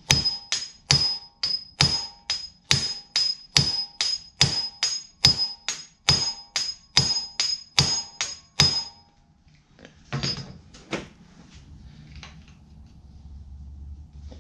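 Hammer rapidly striking a hand impact driver fitted with a Phillips bit, about three sharp metallic blows a second with a ringing note, to break loose a screw on the engine's side cover. The hammering stops after about nine seconds and is followed by two looser knocks.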